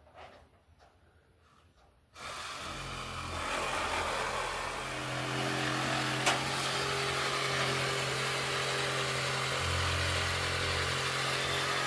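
A motor-driven power tool starts about two seconds in and runs steadily with a low hum under a loud whir, with one sharp click near the middle.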